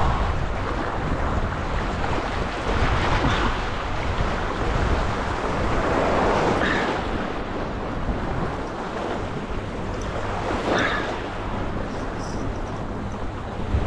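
Wind buffeting the microphone over harbour water washing against shoreline rocks, with a few surges of splashing every few seconds.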